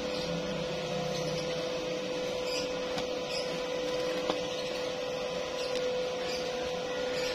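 Steady machine hum: one constant mid-pitched tone over an even hiss, with a few faint ticks.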